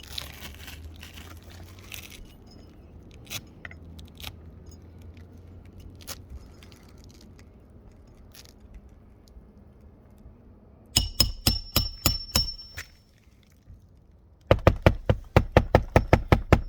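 Roof snake slide hammer pulling shingle nails under asphalt shingles: a few light clicks and scrapes, then two fast runs of sharp metal strikes at about five a second, the first of about eight with a slight metallic ring and the second of about a dozen near the end.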